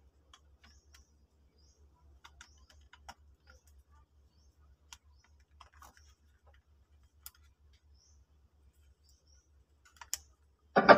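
Scattered light clicks and taps as a cylindrical Bluetooth speaker is handled and turned over on a metal bench. Right at the end a loud sound starts suddenly from the speaker.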